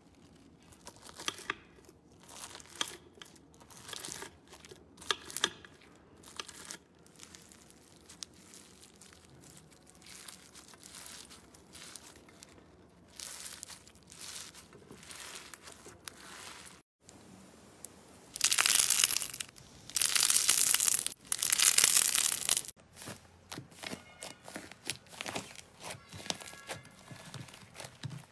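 Bead-filled (fishbowl-bead) slime crackling and popping in many small sharp clicks as it is cut and squeezed by hand. After a short break, three long loud bursts of crinkling and tearing as slime wrapped in printed paper is crumpled and pulled apart, then softer crinkling.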